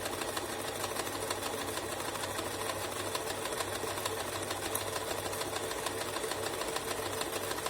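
Domestic sewing machine stitching at a steady, fast, even pace without pause.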